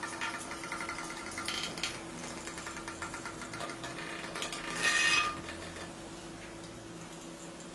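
Battery-powered toy bugs buzzing and rattling as they skitter across a plastic tray, with a short louder burst of rattling about five seconds in.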